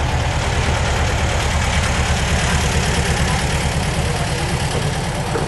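Car engine idling steadily close by, with a fast, even low pulsing.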